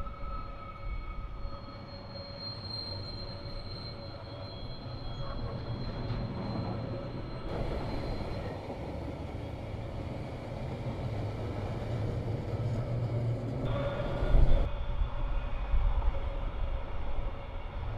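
Container wagons of a long intermodal freight train rolling past: a steady rumble of steel wheels on the rails with thin, steady squealing tones from the wheels. A louder jolt about fourteen and a half seconds in.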